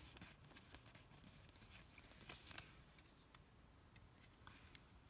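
Near silence with faint, scattered soft ticks and rustles of a stack of trading cards being handled and slid between the fingers.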